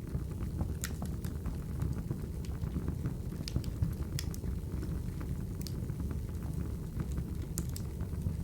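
Wood fire crackling: a steady low rumble of burning with sharp pops and snaps scattered at irregular moments.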